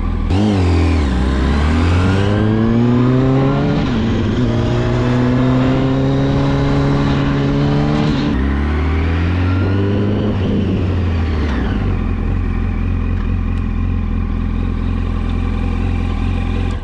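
2006 Yamaha R1's inline-four engine, on its stock exhaust, with its engine speed rising, holding and falling twice, then settling into a steady idle; the sound cuts off abruptly at the end.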